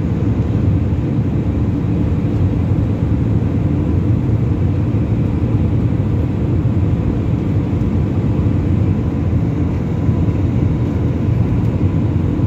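Steady cabin noise of a jet airliner in flight, heard from a window seat beside the turbofan engine: a constant low rumble of engine and airflow with a faint steady whine above it.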